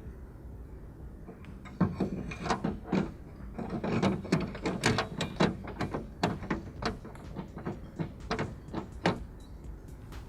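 Irregular clicks and knocks of a new plastic-and-metal car door handle being worked into place in the door, with short clattering handling sounds.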